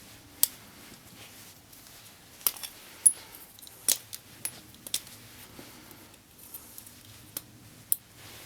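Small metal parts and tools clicking and clinking as they are handled and set down, about a dozen sharp clicks at irregular intervals, the loudest about three seconds in.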